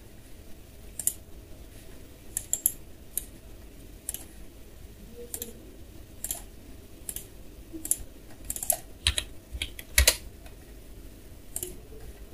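Computer keyboard keystrokes and mouse clicks, irregular and sparse, some in quick pairs.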